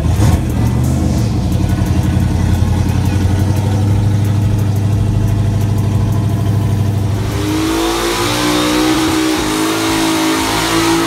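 Loud big-block V8 of a donk Chevrolet convertible running at a low, steady speed. About seven seconds in it is revved up hard and the rear tyres spin in a burnout, with a rising engine note over a hissing tyre squeal.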